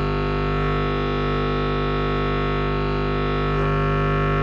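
Eurorack modular synth voice from a Loquelic Iteritas digital oscillator holding one steady, bright drone with many overtones. Its tone shifts slightly about three and a half seconds in.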